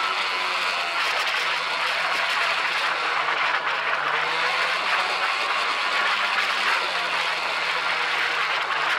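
Snowmobile running at a steady cruise across snow: a constant engine drone with a low hum that sags and recovers slightly in pitch, over the rushing noise of the track.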